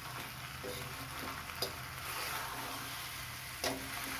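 Penne in a thick masala sauce being stirred and tossed with a slotted metal spatula in a metal kadai, sizzling steadily over the flame, with two sharp taps of the spatula against the pan, about a second and a half in and near the end.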